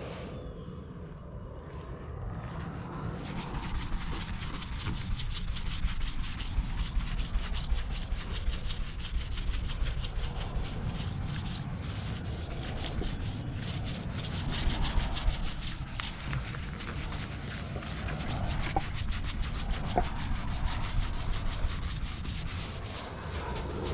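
Blue scouring sponge rubbed quickly back and forth over the painted metal side panel of a box truck, scrubbing off old lettering glue softened with oven cleaner. The scrubbing starts about three seconds in and then keeps on steadily.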